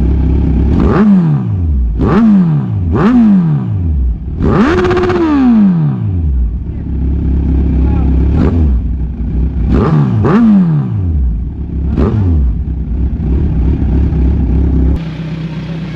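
Kawasaki Z1000R's inline-four engine through an Austin Racing twin slip-on exhaust, idling and being blipped. About eight quick, loud revs each fall straight back to idle, and one around five seconds in goes higher and is held longer.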